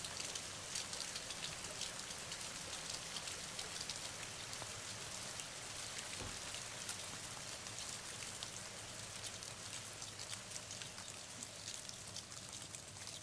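Steady rain falling, a dense patter of many small drop ticks over a soft even hiss.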